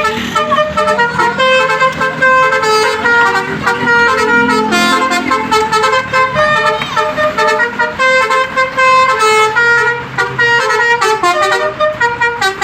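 Bus telolet horn, a Basuri multi-tone air horn, playing a quick melody, its loud notes stepping up and down one after another with no pause.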